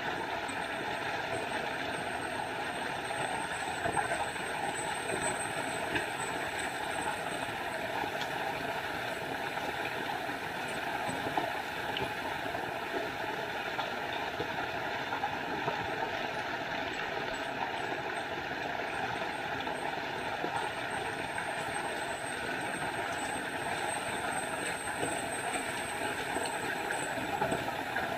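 Small forest waterfall: a steady, even rush of falling water.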